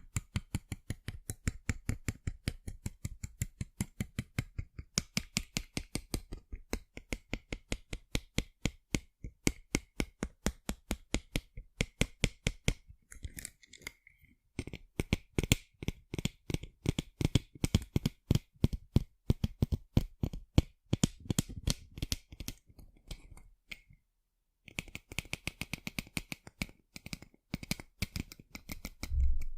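Fingers tapping rapidly on sunglasses: a run of light, crisp clicks several times a second, broken by a few short pauses, with a single low thump near the end.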